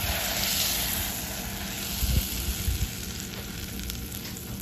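Salted butter sizzling and bubbling as it melts in a stainless steel saucepan on a pan that is a little too hot, the sizzle slowly dying down. A couple of soft knocks about two seconds in.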